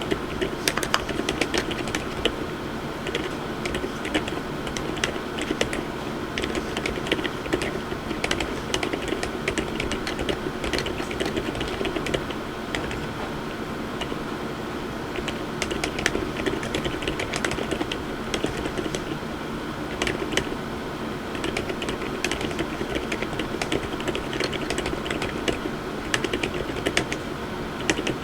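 MONSGEEK M1W mechanical keyboard with Outemu Lime low-noise, light-force switches being typed on continuously: a fast, irregular run of keystroke clacks.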